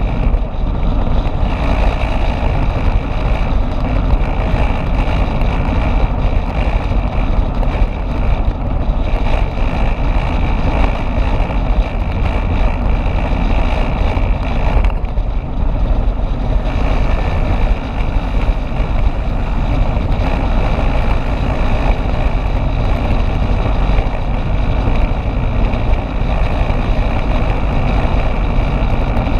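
Motorbike riding at speed: steady, loud rush of wind and engine noise with no breaks. A faint steady high note in it drops out briefly about halfway through.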